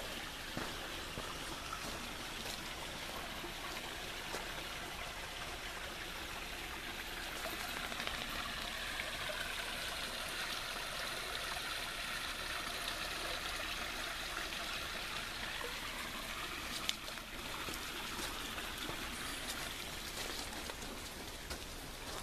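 Running water of a small stream or creek, a steady rushing trickle that grows louder about a third of the way in and eases off again after about three-quarters, with occasional footsteps on the trail.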